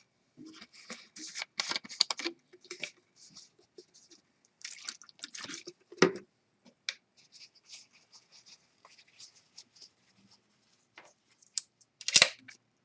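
Irregular rustling, rubbing and small sharp clicks of small magnets being wiped clean with rubbing alcohol by hand.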